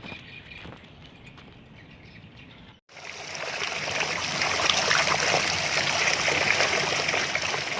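Faint outdoor background with a few chirps, then, after a sudden cut about three seconds in, a loud, steady rushing noise like running or splashing water.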